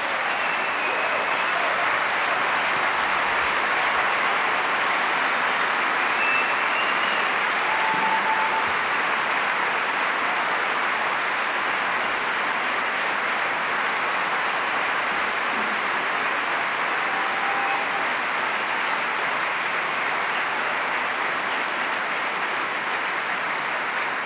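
A large auditorium crowd applauding steadily in a long, sustained ovation.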